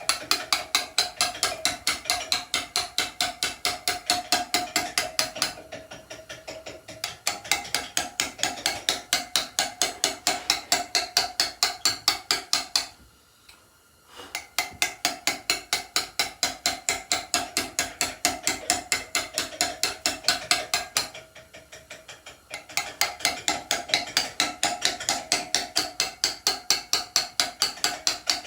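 Hammer striking a chisel in quick, steady taps, about four or five a second, cutting letters into a stone headstone, with a ringing note from the struck steel. The tapping pauses briefly about thirteen seconds in, then carries on.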